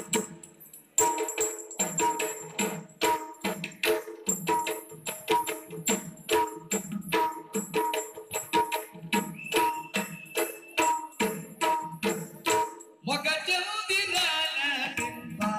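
Yakshagana stage music: a fast, steady rhythm of drum strokes with metallic jingling, which pauses at the start and resumes about a second in. Near the end the drumming breaks off briefly and a singer's voice comes in.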